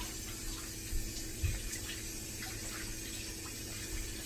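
Steady kitchen background hiss with a low hum under it, and two soft knocks about a second in.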